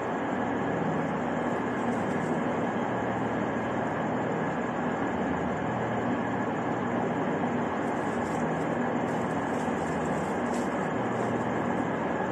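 Steady rumble and hiss of a railway station hall, with trains running or idling at the platforms; the sound holds level throughout.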